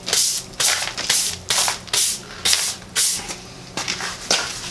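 Stiff broom bristles scrubbing rough concrete in quick repeated strokes, about two a second, working bonding glue onto the broken edge of the old concrete slab.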